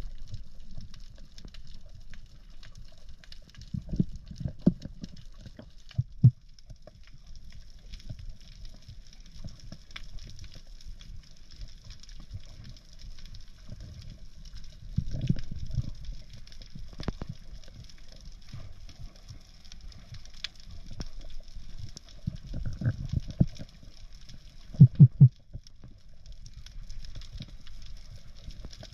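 Underwater sound heard through an action camera's waterproof housing while a diver swims with a speargun. Low, muffled rumbles of moving water rise and fade several times, clustered around four seconds in, mid-way, and near the end, over a faint bed of scattered clicks.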